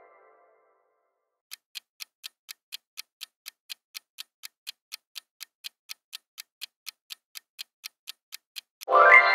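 Quiz countdown-timer sound effect: a clock-like tick about four times a second, starting about a second and a half in. Near the end, a bright chime rings out as the time runs out, marking the answer reveal.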